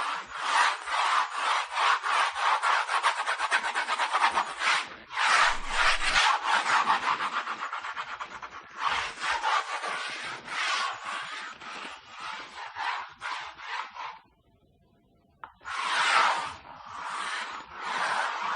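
Pencil scratching on paper in quick, rapid back-and-forth strokes as someone draws, in long runs with brief pauses, one of them lasting about a second near the end.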